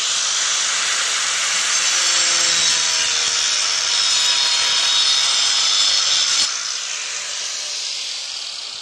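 Angle grinder with a wood-cutting disc sawing through a one-inch-thick board, a loud steady cutting noise. About six and a half seconds in the noise drops suddenly and the grinder carries on more quietly.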